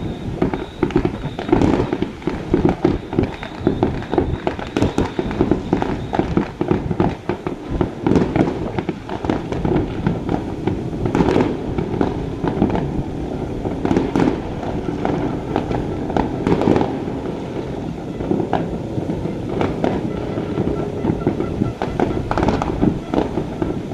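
Fireworks display: a dense, unbroken run of bangs and crackles, with a few sharper, louder cracks standing out above the rest.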